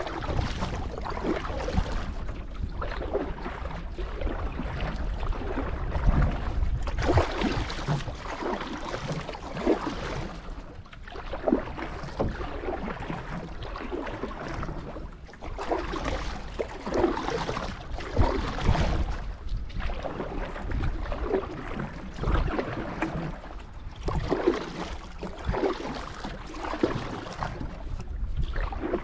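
Canoe paddle strokes in lake water: repeated, irregular splashes as the blade dips and pulls, over a steady low rumble.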